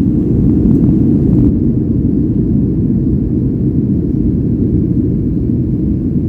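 Rolls-Royce RB211 engines of a Boeing 757-200 heard from inside the passenger cabin: a loud, steady low rumble of jet engines at high thrust.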